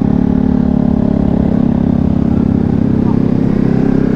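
Honda CBR250RR's parallel-twin engine running at low revs as the bike rides off. The pitch rises slightly in the second half.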